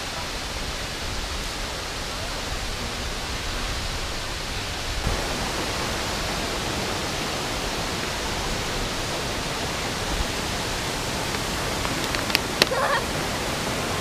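Steady rushing of the Great Waterfall (Veliki Slap), with two sharp clicks near the end.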